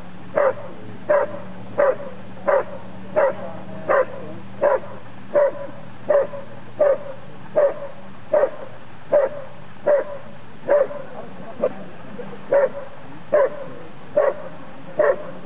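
Briard barking at a helper standing in the blind, the hold-and-bark of protection work: single loud barks in a steady, even rhythm, a little more than one a second.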